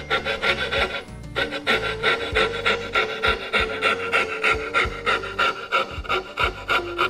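Wood being worked by hand in quick back-and-forth rasping strokes, about three a second, pausing briefly about a second in, over background music with held notes.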